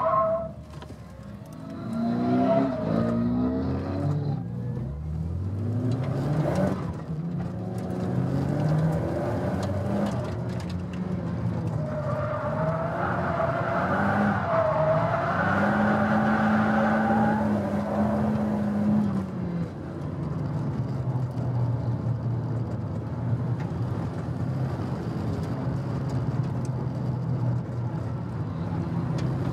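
Cabin sound of a 1999 Nissan Silvia S15 Spec R's turbocharged SR20DET four-cylinder driven hard on track. The revs drop sharply just after the start, climb again over a few seconds, hold high for a few seconds, then fall about two-thirds of the way through and settle to a lower, steady pitch.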